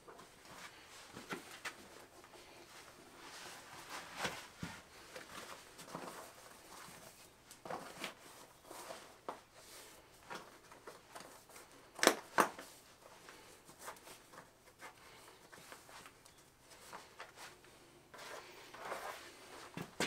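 Quiet rustling, light clicks and knocks of hand work at floor level in a small room, with two sharper knocks close together about twelve seconds in.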